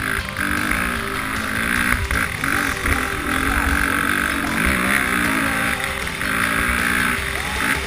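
KTM dirt bike engine running hard, its pitch rising and falling again and again as the throttle is worked along a rough trail.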